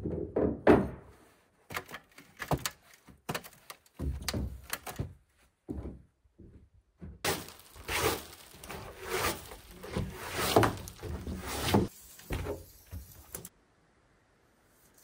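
Irregular knocks and thuds of footsteps and handled lumber on a plywood subfloor, with a few seconds of scuffing and scraping about halfway through.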